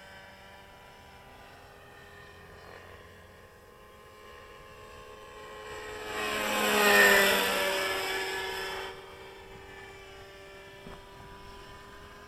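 Radio-controlled model helicopter with a nitro glow engine in flight, a steady whine that swells loud from about six to nine seconds in as it passes close, its pitch dipping as it goes by.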